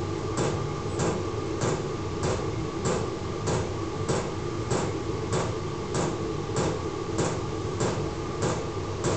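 A 12-volt diesel air heater running: its fuel pump ticks steadily, about one and a half times a second, over the even hum of its blower fan.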